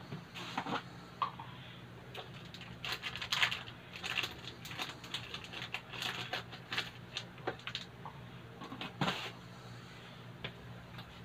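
Covered pot of soup broth heating on a gas burner, giving off irregular light ticking and crackling as it comes up to the boil, over a steady low hum.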